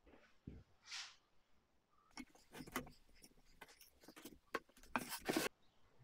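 Plywood panels knocking and clattering against each other and the bench as a tape-hinged set of mitred panels is folded up into a box, with a brief scrape about a second in. The knocks come thicker from about two seconds on, and the loudest come about five seconds in.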